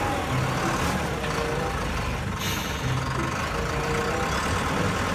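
Bulldozer's diesel engine running steadily, a dense rumbling noise.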